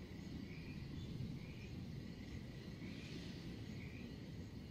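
Faint ambient background: a steady low rumble and hiss with a few short, faint high chirps about a second apart.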